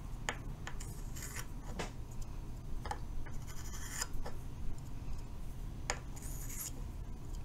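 Stick of chalk scratching along a plastic cube model as a line is drawn around it: short scratchy strokes in several bursts, with a few sharp clicks between them.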